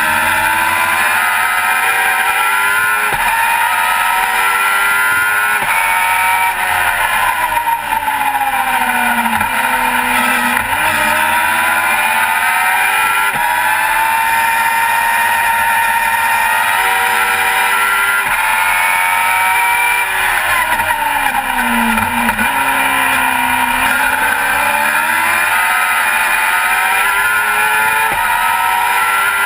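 Racing car engine heard from the cockpit at full race pace, its pitch climbing through the gears and dropping sharply at each upshift. Twice the revs fall away in a long downward sweep, about ten seconds in and again around twenty-one seconds in, as the car slows for corners, then climb again.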